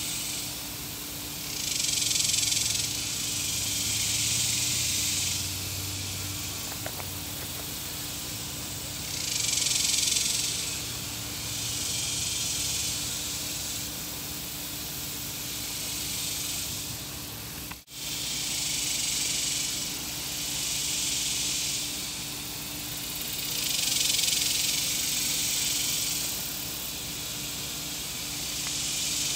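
Outdoor insect chorus, cicada-like: a high hiss that swells and fades in four long waves, each lasting a few seconds. A faint steady hum runs beneath it, and the sound cuts out for an instant a little past halfway.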